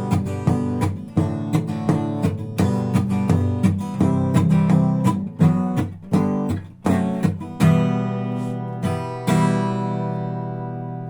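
Acoustic guitar strummed in a driving rhythm mixed with knocks on the guitar body, then a final chord struck near the end and left to ring out and fade.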